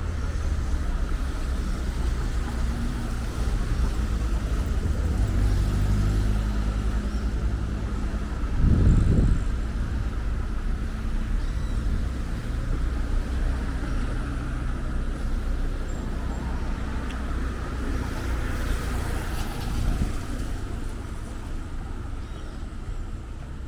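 Road traffic passing: vehicle engines and tyres over a steady low rumble, with one engine audible as a steady hum early on. A brief low thump stands out about nine seconds in.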